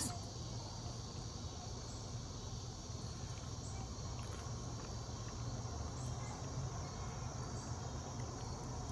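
Steady chorus of crickets chirring, with a steady low hum underneath.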